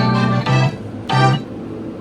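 Background music: keyboard chords struck in short, evenly spaced beats.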